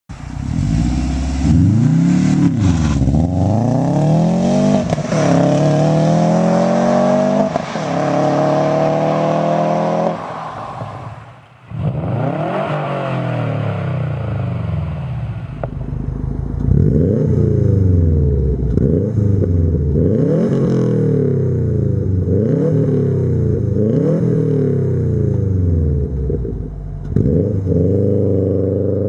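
Modified Subaru Legacy exhausts, one car after another. First, a 2008 Legacy Spec B's turbocharged flat-four with a turbo-back exhaust accelerates hard, its pitch climbing through each gear and dropping at the shifts. After a short break, a 2005 Legacy GT with an FMS cat-back exhaust is revved while standing. Then a Legacy GT Spec.B is revved again and again from idle, each rev rising and falling about every second and a half.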